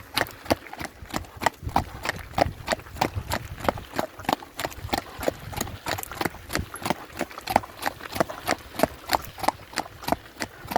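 Horse's hooves clip-clopping in a steady, even rhythm, about four to five hoofbeats a second.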